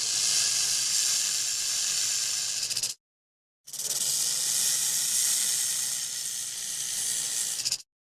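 Dilophosaurus sound effect: a loud, breathy, snake-like hiss that cuts off about three seconds in, then after a short silence a second, longer hiss that stops near the end.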